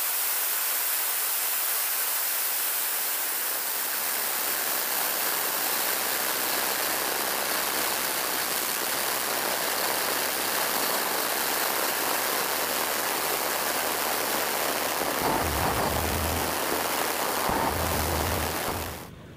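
Steady rushing noise recorded aboard a large radio-controlled VC10 model in flight: air streaming over the airframe mixed with the sound of its four Wren micro gas turbines. Low gusty buffeting of wind on the microphone joins in for the last few seconds, and the sound cuts off suddenly at the very end.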